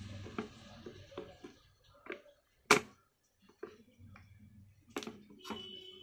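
Small clicks and taps of pliers and wire ends on a table fan's switch terminals and nuts, with one sharp click a little under three seconds in.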